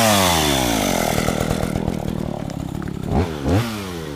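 Chainsaw engine revving down from high speed toward idle, then blipped twice in quick succession about three seconds in before dropping back to idle.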